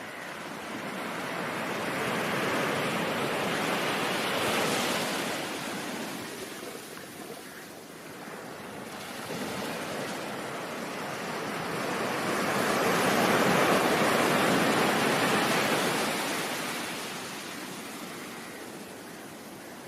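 Ocean surf: two waves wash in and draw back, the first swelling and fading over the first eight seconds, the second, louder one building to a peak in the second half before ebbing away.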